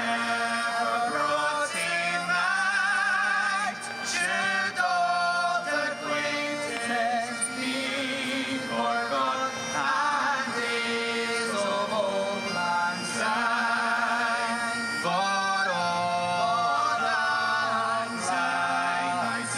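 Scottish folk music: a melody with ornamented, wavering notes over a steady low drone.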